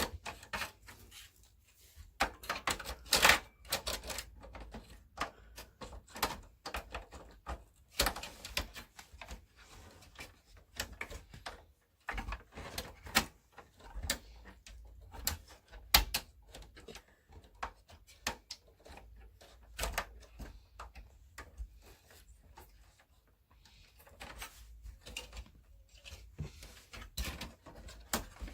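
Irregular clicks, taps and knocks of hard plastic and metal parts being handled while working on a desktop PC, with a few louder knocks scattered through.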